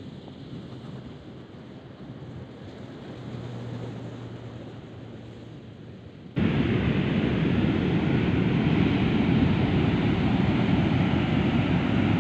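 Soft wind and sea noise with a faint low hum, then about six seconds in it jumps suddenly to loud wind buffeting the microphone over surf breaking on the beach.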